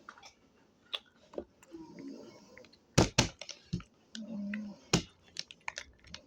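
Close handling of a food package and its contents: a string of sharp clicks and taps, the loudest a quick pair about three seconds in. A short low hum comes about four seconds in.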